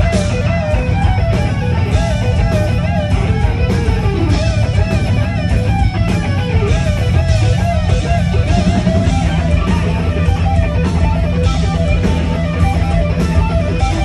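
Live heavy metal guitar duel: two electric guitars playing lead lines with wide vibrato and pitch bends, over drums hitting steadily, loud through a club PA.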